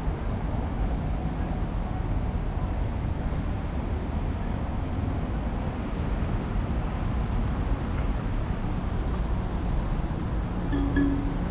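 Steady low rumble of road traffic and city background noise, with a short low tone near the end.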